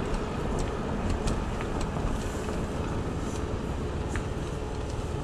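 Car rolling slowly, heard from inside the cabin: a steady low rumble of engine and tyres, with a few faint ticks.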